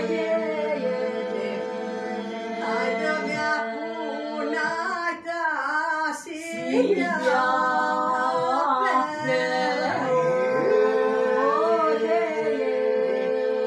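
A small group of men and women singing an Aromanian folk song a cappella: a steady held drone note lies beneath a wavering, ornamented melody line.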